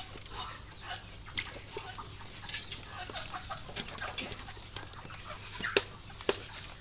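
Chickens clucking on and off, mixed with short, sharp wet slaps and splashes from small fish being handled in a shallow basin of water; the two loudest slaps come near the end.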